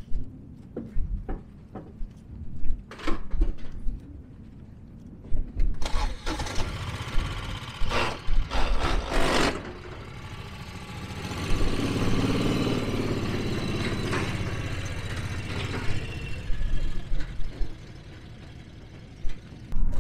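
Small utility vehicle's engine starting and running steadily for a few seconds, then fading away. Knocks and footsteps come first, as the driver climbs into the seat.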